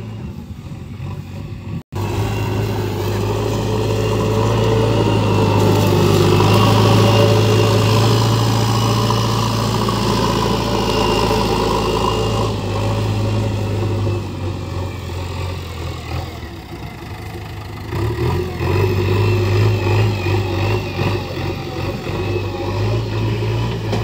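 JCB 3DX backhoe loader's diesel engine running hard as the machine pushes and carries soil, easing off for a few seconds past the middle and then picking up again.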